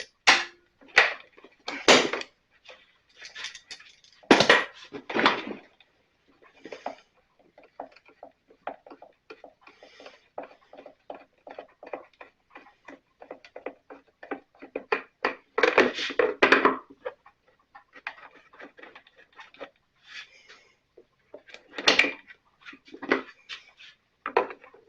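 Hand tools clicking and clanking against the Stihl BR 600 backpack blower's plastic housing as a deep-set cover screw is worked loose. A run of small rapid clicks sits between a handful of louder knocks.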